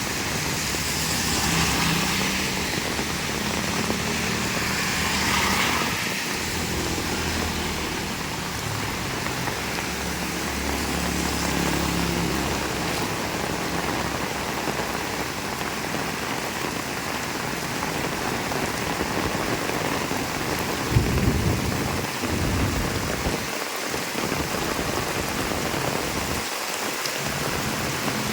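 Heavy rain pouring steadily. In the first part, a motor vehicle's low engine hum runs under the rain, and a single sharp knock stands out about three-quarters of the way through.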